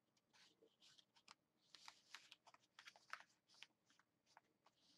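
Faint rustling and light irregular taps of paper being handled and pressed down by hand onto a journal page as a paper flap is stuck in place with double-sided tape.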